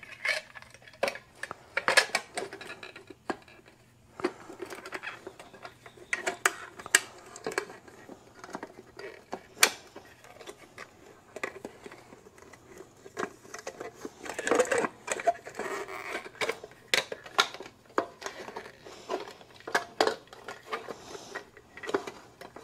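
Irregular metal clinks, taps and light scrapes as a chrome-ringed LED headlamp is handled and pushed against a motorcycle's headlight bucket in repeated tries to seat it. A faint steady hum sits underneath.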